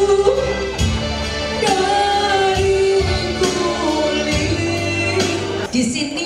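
A woman singing a nostalgic Indonesian pop song (tembang kenangan) into a microphone over an amplified band accompaniment, holding long, wavering notes.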